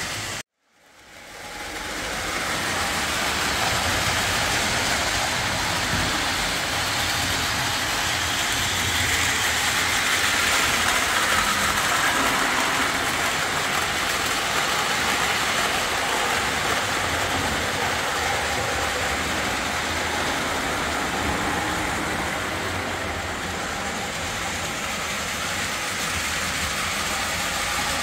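Lionel O-27 model trains running on three-rail tinplate track: a steady rumble of metal wheels on rail with motor hum. The sound drops out briefly just after the start, then fades back in and runs on evenly.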